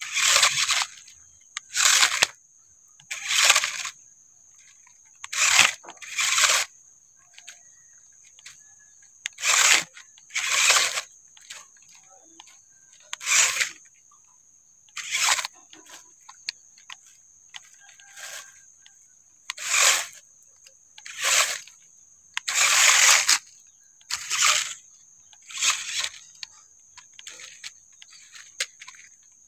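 Toy RC off-road crawler's electric motor and gearbox whirring in short throttle bursts, one about every second and a half, as its tyres scrabble over dirt and a log. A faint steady high whine runs underneath.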